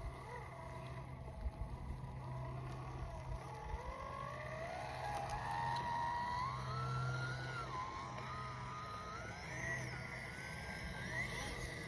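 Brushless electric motor of a 1/18-scale RC crawler whining under load as it climbs an incline, its pitch wavering with the throttle and rising gradually over the climb.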